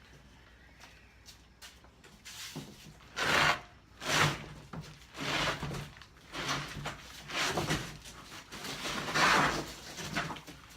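A large cardboard shipping box and its packing being pushed, pulled and handled: a run of scraping, rubbing noises that begins about two seconds in, loudest about three, four and nine seconds in.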